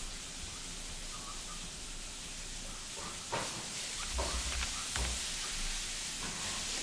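Steady background hiss, with a few faint soft knocks about four to five seconds in.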